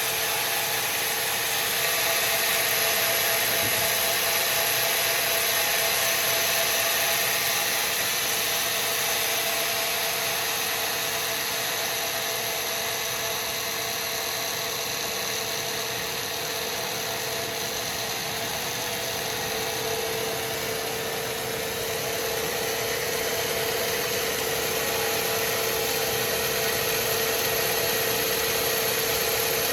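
Sawmill bandsaw machinery running steadily, a constant mechanical hum with a steady high whine that grows a little louder about two thirds of the way through.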